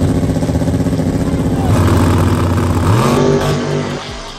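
Car engine running loud and steady, then revving up with a rising pitch about three seconds in before fading.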